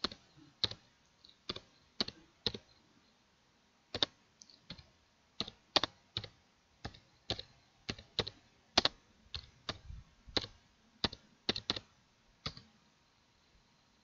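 Computer keyboard being typed on: slow, separate keystrokes, about two a second, with a short pause about three seconds in.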